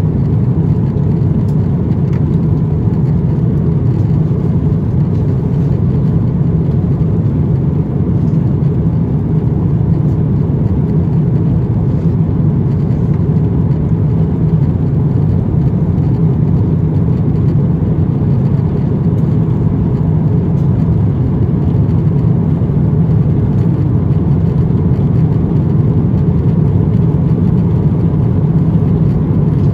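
Steady low rumble of cabin noise inside an Airbus A350-900 in flight: airflow and its Rolls-Royce Trent XWB engines.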